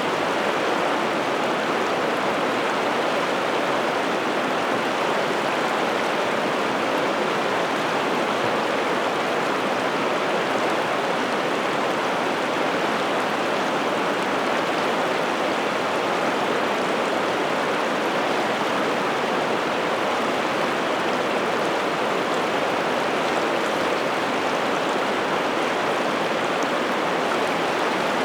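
River water rushing steadily over rapids, a continuous even roar of flowing water.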